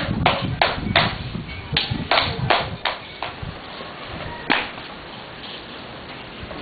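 Hand clapping in a two-person clapping game: sharp palm claps in a quick steady rhythm, about three a second, stopping a little over three seconds in, then a single sharp smack about four and a half seconds in.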